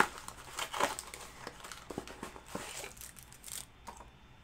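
Trading card pack wrapper crinkling and tearing as a hanger pack is opened by hand, a run of irregular sharp crackles.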